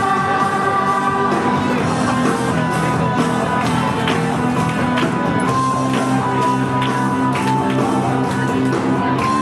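Loud music with held notes and a scattering of drum hits.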